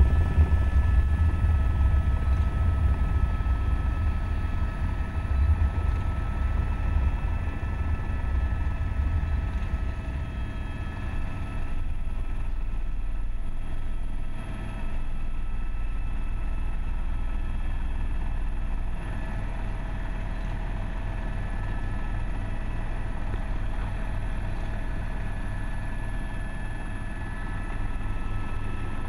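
Helicopter engine and rotor heard inside the cabin: a steady drone with a low rotor beat and a few constant high whining tones.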